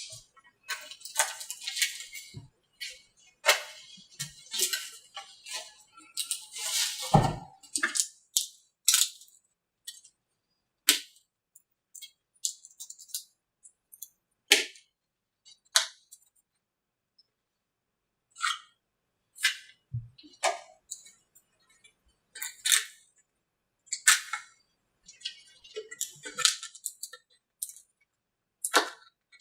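Irregular sharp cracks, clicks and short scrapes as a fiberglass male mold is pried loose from its female mold, the layers snapping free in pieces, with brief pauses between them.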